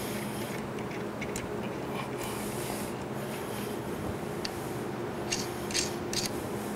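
Steady hum with a faint low tone, with a few light clicks and rubs near the end as the spindle motor is handled on its metal mounting plate.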